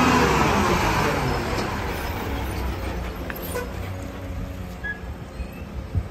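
Mack rear-loader garbage truck's diesel engine driving close past and slowing, its pitch falling and its sound fading over a few seconds into a low idle rumble. A single sharp knock comes near the end.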